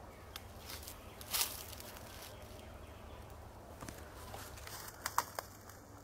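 Faint footsteps and crackling of dry leaf litter and twigs on a woodland floor: a few scattered snaps, the loudest about a second and a half in and a quick cluster of three near the end, over a low steady rumble.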